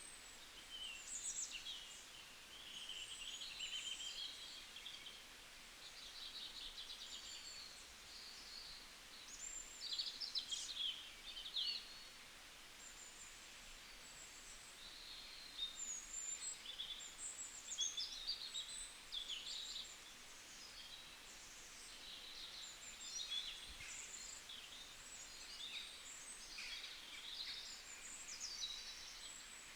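Wild songbirds chirping and singing in overlapping short, high calls and trills over faint background hiss, with a brief lull about halfway through.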